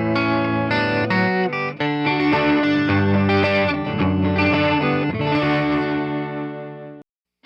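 Electric 12-string guitar strumming bright, jangly chords. The last chord rings and fades, then cuts off abruptly about seven seconds in.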